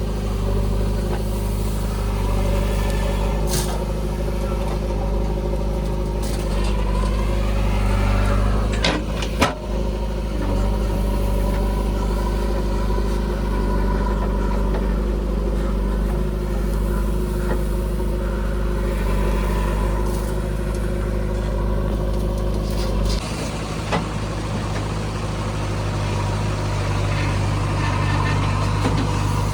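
Diesel engine of a JCB 3DX backhoe loader running steadily while it works, with a sharp knock about nine seconds in and a couple of lighter ones. The deep part of the engine note eases off a little past twenty seconds.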